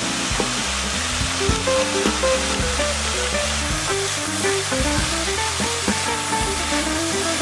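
Sliced beef, carrot, onion, shiitake and blanched spinach sizzling in a hot pan as they are stir-fried and tossed with chopsticks and a wooden spatula, with scattered light clicks of the utensils.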